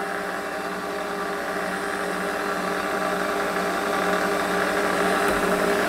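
Steady electric motor hum, one low drone with its overtones, slowly getting a little louder, with a soft low bump near the end.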